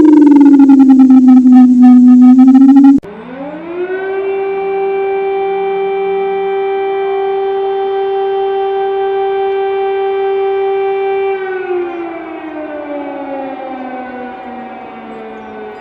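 Two civil-defence air-raid siren recordings, one after the other. The first falls in pitch and cuts off abruptly about three seconds in. The second, quieter, winds up to a steady tone, holds it, and winds down slowly over the last few seconds.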